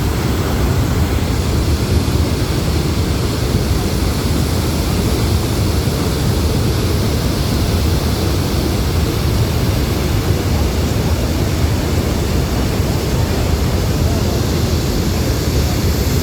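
Niagara Falls pouring: a loud, steady, unbroken rush of falling water, heaviest in the low end.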